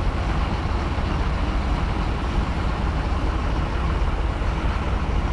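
Diesel engines of a heavily loaded 12-wheel Ashok Leyland lorry working slowly through a hairpin bend and of a bus pulling past close by: a steady low rumble.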